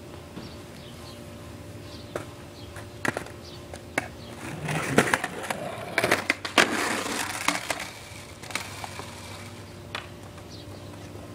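Skateboard rolling past on a concrete sidewalk, its wheels rumbling for a few seconds in the middle, with several sharp clacks from the board.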